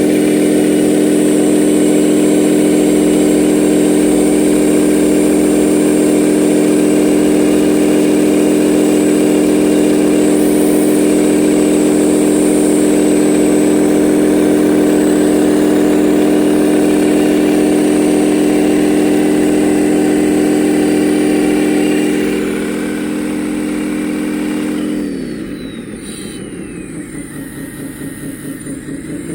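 Radio-controlled model construction machine running with a steady, engine-like hum held at one pitch. About 25 seconds in it drops in pitch and level, then climbs again near the end.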